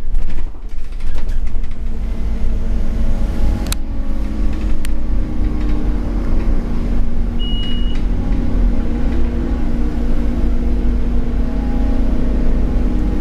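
Scania OmniCity double-decker bus heard from the upper deck: the Scania N230UD's five-cylinder diesel engine drones and rumbles steadily as the bus drives along, with body rattles. A couple of sharp clicks come about four seconds in, and a short high beep sounds about seven seconds in.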